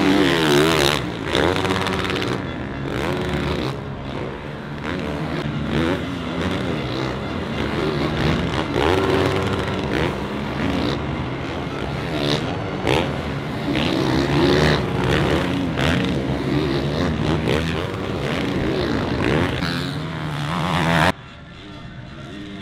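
Several motocross bikes racing on the track, engines revving up and down as they accelerate and shift gears, overlapping one another. The sound drops suddenly near the end.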